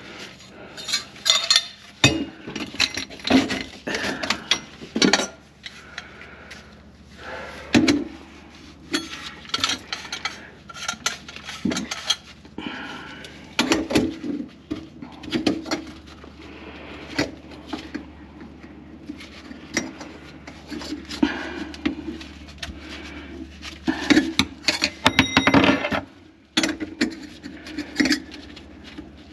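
Irregular clattering, clinking and knocking of hard objects, metal and dishware among them, with some rubbing, over a steady low hum.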